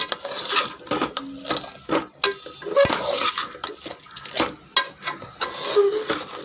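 Metal spoon scraping and clinking against a metal cooking pot as uncooked rice is stirred into fried masala, in a run of quick, irregular strokes.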